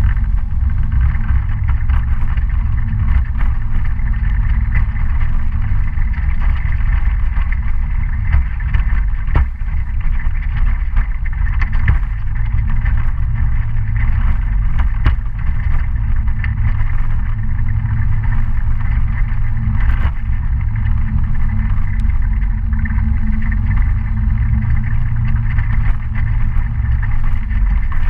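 Dafra Citycom S 300i scooter engine running steadily while riding on a dirt road, with a heavy low rumble and a few sharp ticks.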